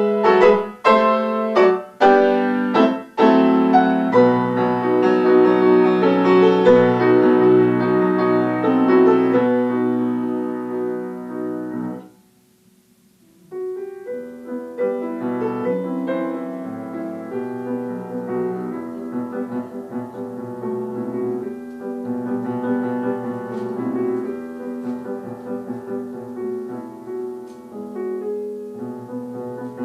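Solo grand piano playing: loud, forceful chords in the first few seconds, a full passage that dies away to a brief pause about twelve seconds in, then softer, flowing playing resumes.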